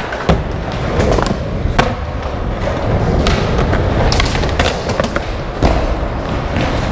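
Skateboard wheels rolling on a concrete floor with a steady rumble. Sharp clacks of boards hitting the ground are scattered through it, about one a second.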